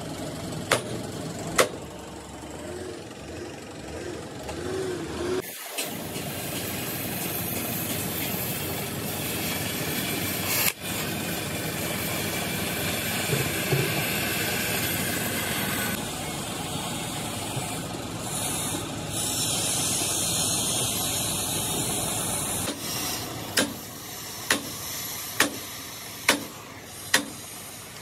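Workshop noise: a steady hiss with sharp knocks, ending in a run of evenly spaced knocks about once a second.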